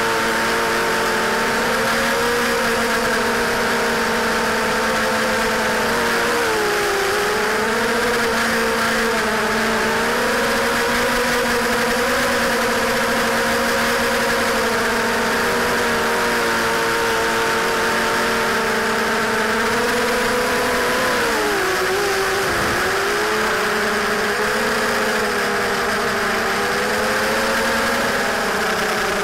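Quadcopter's four DYS 1806 2300kv brushless motors spinning Gemfan 5040 propellers, a buzzing whine of several tones that sags and climbs back with throttle changes several times, the deepest dip about three-quarters of the way through. Heard through the onboard camera's microphone, heavily distorted (saturated).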